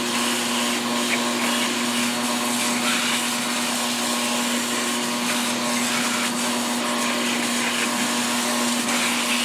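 Shop vacuum running steadily with a constant motor hum and rushing airflow, its crevice tool sucking up cutting debris along the edges of a cut floor opening.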